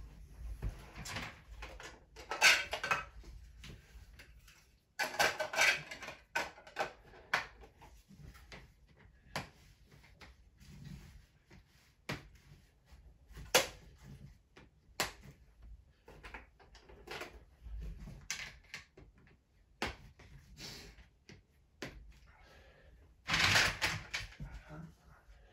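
Plastic Playmobil train track sections clicking and clattering as they are picked up, knocked together and set down, with several louder bursts of clatter when a handful of pieces is gathered up.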